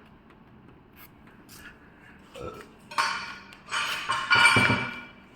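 Metal tools and car suspension parts clinking and rattling while a front strut assembly is being unbolted. It starts with a few faint clicks, then about three seconds in come three louder bouts of metallic clatter.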